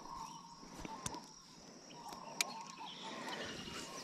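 Faint outdoor background with a steady high-pitched hum and a couple of sharp clicks, the clearest about two and a half seconds in.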